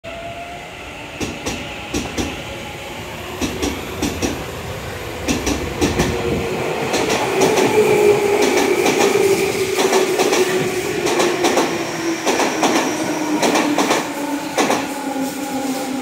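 Tobu 9000-series armature-chopper-controlled electric train pulling into a station and slowing, with a whine that falls in pitch as it slows and repeated clicks of the wheels over rail joints. It grows louder about seven seconds in as the cars come alongside.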